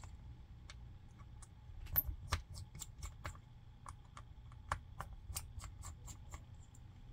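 Light, irregular clicks and taps of fingers handling the internals of an opened smartphone, working at its flex ribbon cables and frame, over a faint steady hum.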